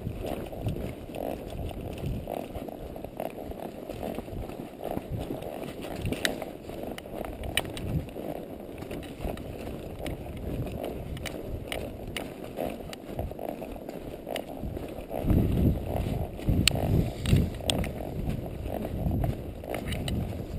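A palomino horse walking on a dirt and rock trail, heard from the saddle: steady hoof steps and small clicks of tack, under a low rumble that grows louder about fifteen seconds in.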